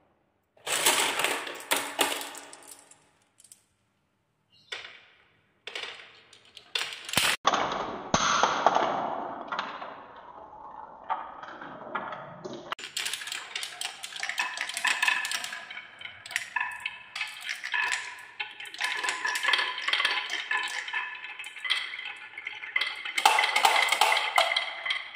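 Balls rolling and clattering down a wooden marble run. A burst of clacking about a second in dies away, and after a short gap a long run of dense rattling and clicking follows as many balls roll along the wooden tracks and knock into each other.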